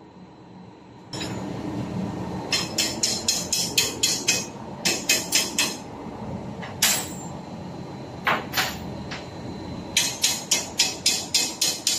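Runs of quick metal hammer taps on a steel ring, about six a second, with a few single strikes between them. Under them is a steady hiss that starts about a second in.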